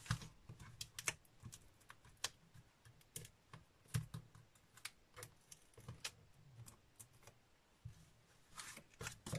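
Soft, irregular clicks and taps of fingernails and a small piece of cardstock being handled on a craft mat, with light paper rustling.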